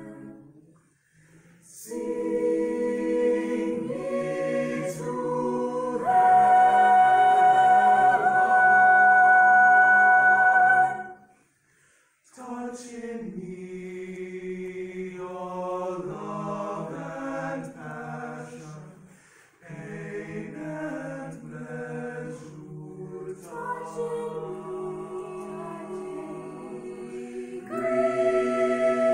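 Mixed high school choir singing in parts, in phrases broken by short pauses, with a loud held chord about six to eleven seconds in.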